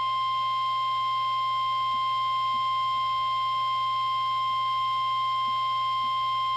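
Weatheradio Canada's 1050 Hz weather alert tone: a single steady, unbroken tone, sent as the monthly test of the tone-alarm feature in weather radio receivers.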